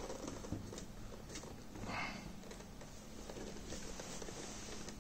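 Handling noise as a robot vacuum's plastic body is turned over in its cardboard box and polystyrene packing: faint rubbing and scraping with light knocks, and a brief rustle about two seconds in.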